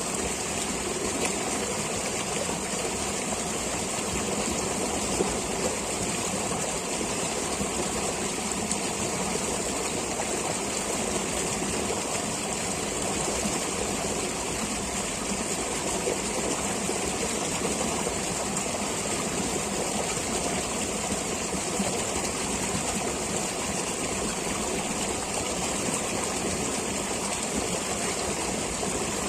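Stream water flowing steadily, an even rushing noise that does not change.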